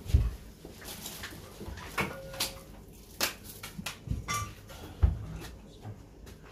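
Scattered knocks, clicks and rustles as a plastic bowl, a cooking pot and a plastic floor sheet are handled, with rice being scooped out onto the sheet. Two dull thumps, one right at the start and one about five seconds in, are the loudest.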